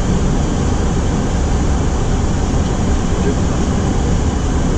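Steady wash of airflow and engine noise inside an Airbus A330 cockpit on final approach, an even rumble heaviest at the low end with no change in level.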